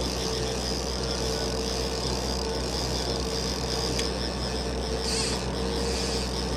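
Boat engine running steadily at trolling speed, a constant low hum with a steady higher whine. One sharp click about four seconds in.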